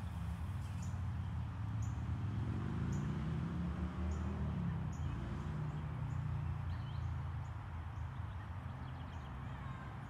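Outdoor ambience: a low, steady engine-like hum whose pitch rises and falls between about two and five seconds in, under a short high chirp that repeats about once a second.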